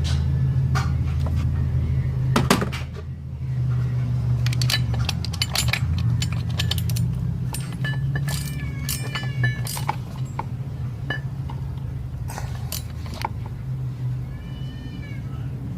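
Scattered light metallic clicks and clinks of hand tools and engine parts being handled during timing-chain reassembly, over a steady low hum.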